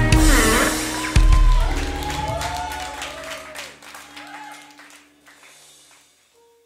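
Live worship band playing its closing chord: a last full-band hit about a second in, then the chord rings out and fades away over several seconds, with voices gliding up and down over it.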